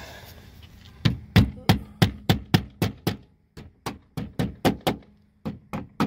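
Hammer tapping protruding plastic folding anchors flush into the holes of a pickup's inner door panel. The light, sharp taps start about a second in and come three to four a second, with a couple of short pauses.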